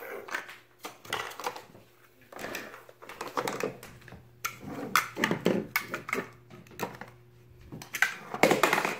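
Large plastic Mega Bloks building blocks clacking and clicking against each other as they are handled and pressed together, in irregular bursts of clatter.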